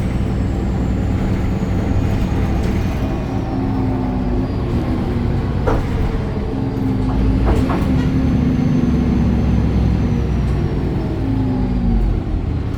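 BredaMenariniBus Avancity Plus city bus under way, its Deutz diesel engine and ZF gearbox running with a steady low rumble. A faint high whine slowly falls in pitch, and a few short rattles come about six and seven and a half seconds in.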